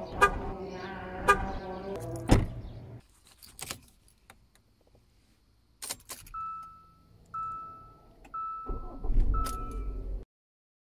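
Hyundai Santa Fe sounds: the car running with three sharp clicks about a second apart, then a quiet spell with a few clicks. After that a dashboard chime beeps four times about a second apart, and a low rumble starts near the end as the engine runs up.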